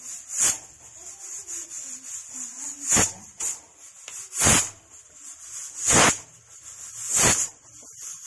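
Aluminium stovetop pressure cooker whistling five times, each whistle a short burst of steam venting through the weighted valve, with a steady high hiss between them. The fifth whistle marks the end of the cooking time.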